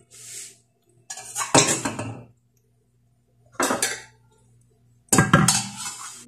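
Metal ladle and spoon clinking and scraping against a large cooking pot as food is dished out, in four short bursts of clatter, the loudest near the end.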